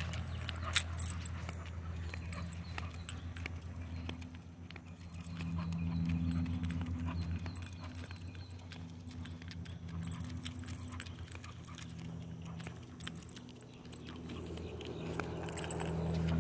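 An XL American bully's collar hardware jingling and clicking as it walks, over a low steady hum that swells twice.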